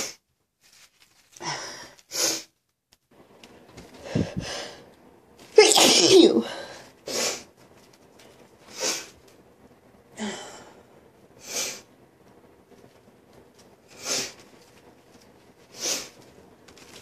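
A woman's sneeze, one long loud voiced one about six seconds in, with a breath drawn before it. Before and after it come short sharp sniffs, one every second or two.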